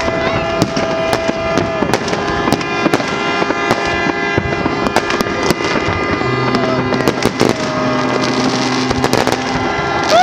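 Fireworks display with shells bursting in quick, irregular bangs and crackles. Long steady tones sound over the bursts, and a lower steady tone joins about six seconds in for roughly three seconds.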